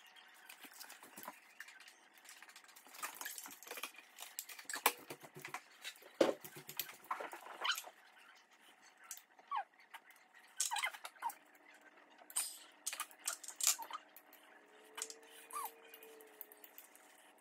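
People eating: irregular chewing and lip-smacking, with chopsticks clicking against porcelain bowls.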